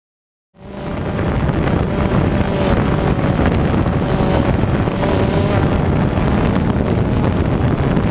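Loud, steady rumble of wind on the microphone outdoors, cutting in suddenly about half a second in, with a faint wavering hum underneath.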